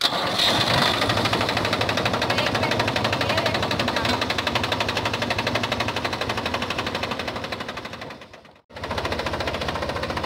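A 20-year-old Mahindra B275 DI tractor's diesel engine comes on abruptly and runs with a fast, even knocking beat. It sags and cuts out for an instant about eight and a half seconds in, then runs on steadily at idle.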